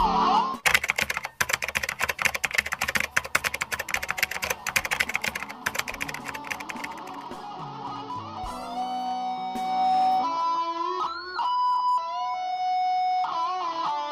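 Background music: fast electric guitar playing with rapid picked strokes, giving way about eight seconds in to a few held, stepped synth notes.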